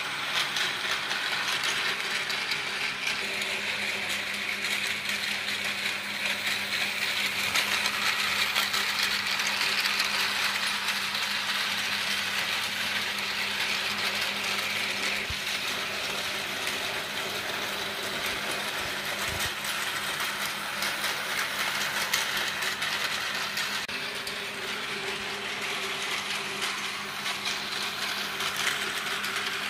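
Battery-powered Tomy toy trains running on blue plastic track: the steady whirr of their small motors and gearboxes, with a dense, rapid clicking as the trains roll over the track.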